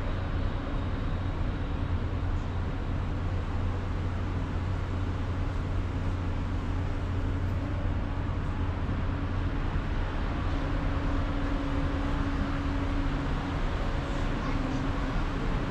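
Steady low hum of a moored catamaran ferry's onboard machinery running, with a fainter higher drone over it.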